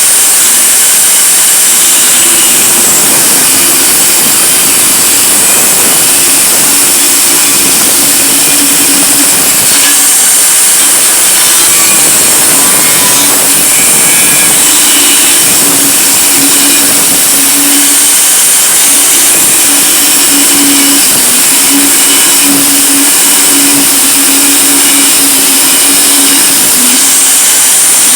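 Power tool cutting through the sheet-metal casing of a microwave oven, running loud and continuous, with a hum that wavers as the cut goes on.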